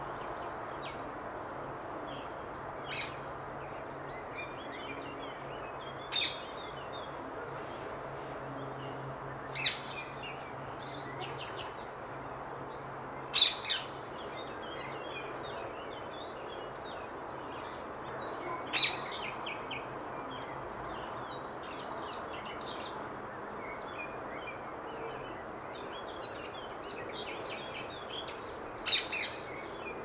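Rose-ringed parakeets giving short, loud calls every few seconds, a few of them in quick pairs, with fainter bird chirps between them over a steady background noise.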